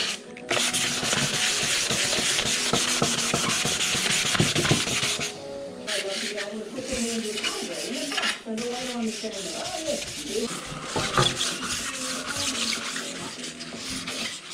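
Aluminium checker plate panel being sanded back by hand, scuffing the alloy before etch primer: steady rubbing strokes for about the first five seconds, then shorter spells of rubbing broken by pauses.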